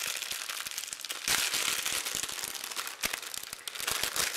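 Clear plastic bag crinkling as hands work a small remote control out of it, the rustling busiest from about a second in until about three seconds.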